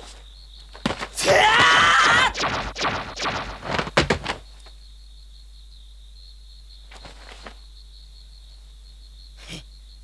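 A young man crying out in grief: a long, strained wordless yell about a second in, then broken sobs and gasps. A short soft thump comes near the end.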